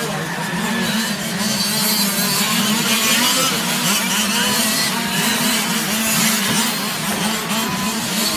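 A pack of 1/5-scale GT radio-controlled cars racing, their small two-stroke petrol engines buzzing together as one dense, overlapping sound, the many pitches wavering up and down as the cars accelerate and lift off.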